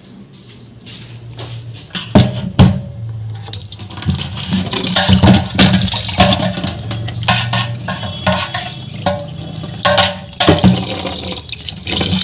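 Kitchen tap running water into a sink while a mixer-grinder jar is rinsed, with a couple of sharp clunks of the jar about two seconds in and small knocks and splashes as it is handled under the stream.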